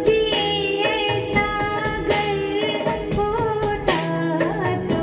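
A song with a woman singing a gliding, ornamented melody over instrumental accompaniment, played through Altec 604-8G studio monitor speakers driven by a single-ended triode tube amplifier.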